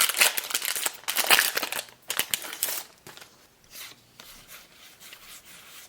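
A WARS trading card game booster pack wrapper being torn open and crinkled, loud for the first three seconds, followed by quieter rustling as the cards are handled.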